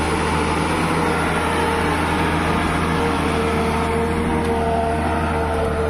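Ashok Leyland six-cylinder diesel engine of a 150 hp home-built tractor running at a steady pace under load, pulling a cultivator through the soil.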